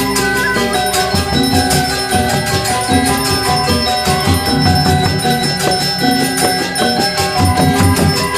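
Balinese gamelan playing: tuned bronze metallophones and bells struck in dense, steady interlocking patterns, the notes ringing on.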